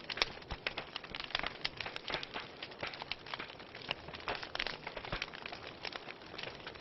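Wood campfire burning, with irregular crackles and sharp pops over a soft steady hiss.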